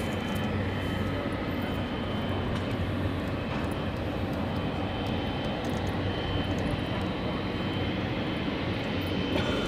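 Boeing 777-300ER's left GE90-115B jet engine being started: a steady whine over a broad rumble.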